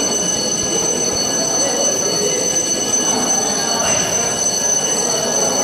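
Building fire alarm sounding a steady high-pitched tone that does not let up, the signal to evacuate, with people's voices underneath.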